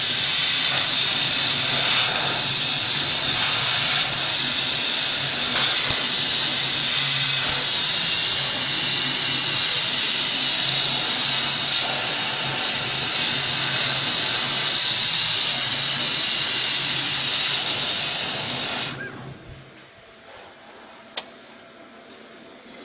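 CO2 laser cutting machine cutting 3 mm MDF: a loud, steady hiss from the cutting head's air assist, with a low hum underneath. It cuts off suddenly about 19 seconds in as the cut ends. One sharp click follows a couple of seconds later.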